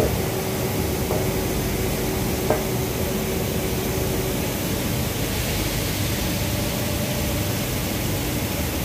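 Steady machinery noise in a yarn-dyeing plant, with a faint steady hum that stops about four seconds in. A few sharp clicks come in the first three seconds.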